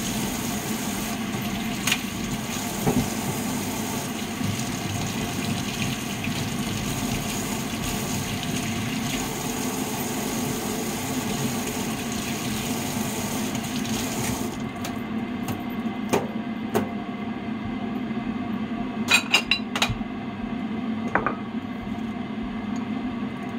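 Kitchen tap running into the sink while green onions are rinsed by hand; the water shuts off about two-thirds of the way through, followed by a few light knocks and clinks at the sink.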